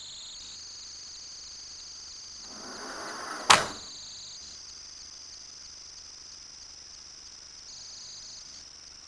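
Steady high-pitched tones drone on throughout, the unexplained noise that overpowers the recording. About two and a half seconds in, a rushing noise swells and ends in a single sharp bang about a second later.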